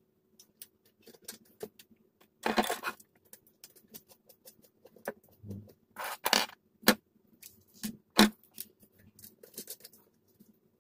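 Small metal hardware and a spanner being handled while nuts are fitted and tightened on an amplifier's metal chassis panel: irregular clicks, clinks and short scrapes. The loudest is a sharp click a little past the eight-second mark. A faint steady hum runs underneath.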